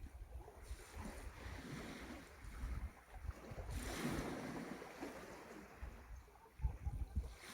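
Sea waves washing, with wind gusting on the microphone; the wash swells briefly about four seconds in.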